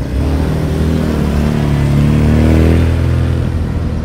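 Classic Mini driving past, its small four-cylinder engine running at a steady pitch. It grows louder as the car comes close, is loudest about two and a half seconds in, and eases off as it moves away.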